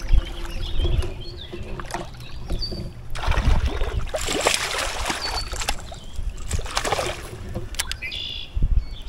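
Kayak on the water: irregular bursts of water and handling noise over a steady low rumble, the biggest lasting about two seconds near the middle.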